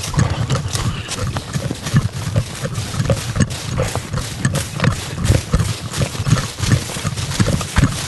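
Running footsteps through brush and then over a grassy field, a low thud with every stride, a couple a second.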